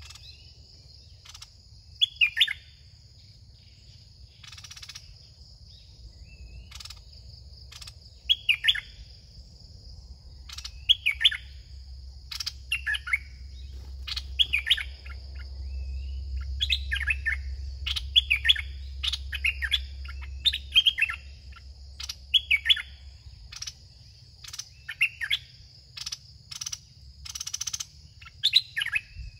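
Red-whiskered bulbuls calling over and over in short falling chirpy phrases, one every second or two, coming thickest in the middle. Under them runs a steady high insect drone.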